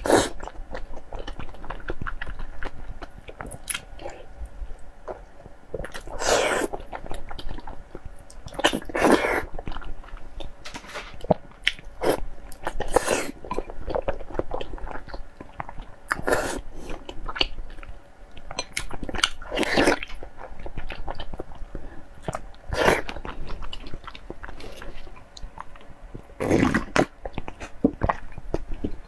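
Close-miked chewing and biting of soft food: many small wet clicks, with a louder wet mouth noise about every three to four seconds as food is sucked in off the chopsticks.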